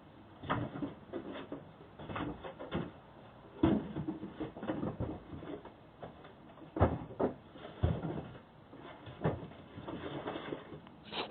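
A run of irregular knocks and clunks, the sound of hard objects being handled and set or dropped down, some louder than others.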